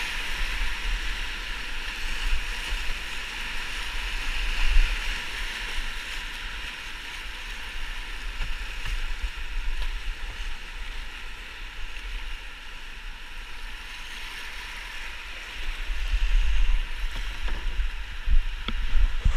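Whitewater rushing around an open canoe's bow as it runs out of a rapid, easing to a quieter rush of current in the middle. A low rumble swells again near the end.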